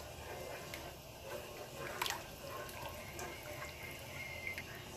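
Wooden spoon stirring a thin white sauce of butter, flour and milk in a pan as it heats toward thickening: faint wet sloshing with small clicks, one a little louder about two seconds in.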